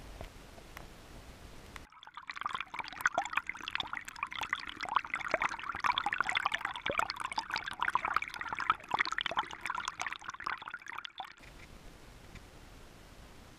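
River water gurgling and splashing around a camera held at the waterline, half in and half out of the water: a dense run of bubbly pops and splashes that starts suddenly about two seconds in and cuts off about two seconds before the end, with a faint steady hiss either side.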